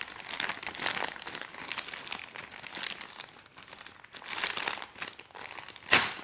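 Parcel packaging being handled and pulled open by hand, crinkling and rustling in irregular bursts, with one sharp knock near the end.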